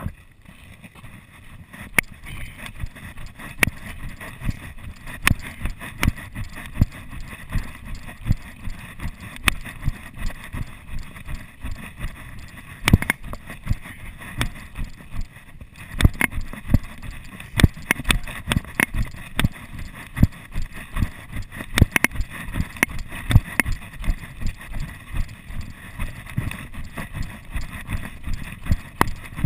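Footsteps on a dirt and gravel trail, a steady run of thumps heard through a chest-mounted GoPro, with a low rumble of body and camera movement between the steps.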